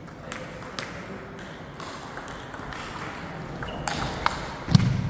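Table tennis rally: a celluloid ball clicking sharply off the rubber bats and the table in an uneven series, with a heavier thump near the end.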